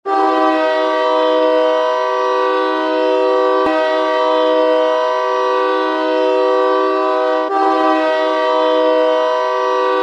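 Ice hockey goal horn, a chord horn of several notes, blown in one long steady blast with two brief catches in the middle.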